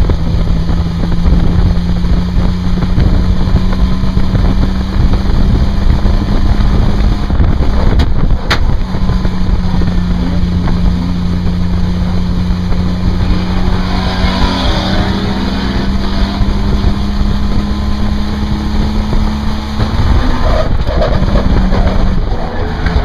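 Race car engine heard from on board, holding a nearly steady note under heavy wind buffeting on the microphone, with a sharp click about eight and a half seconds in and the note dropping about twenty seconds in.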